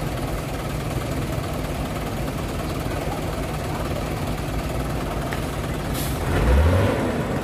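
Diesel engine of a Hino tanker truck running steadily as it works through a deep muddy pothole. About six seconds in there is a short hiss, and the engine revs up for about a second, getting louder, then settles.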